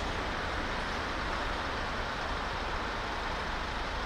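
Steady street noise: the low rumble of idling fire engines mixed with road traffic, with no distinct events.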